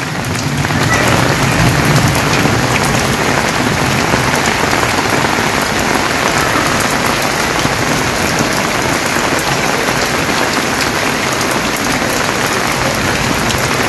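Steady rain falling on corrugated-iron roofs and leaves: an even hiss of drops that holds at the same strength throughout.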